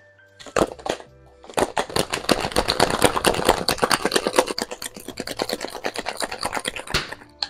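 Ice rattling hard inside a copper two-piece cocktail shaker in a vigorous wet shake with ice, after the dry shake: a couple of short rattles, then rapid, continuous clattering strokes for about five seconds, ending with one sharp knock. Faint background music runs underneath.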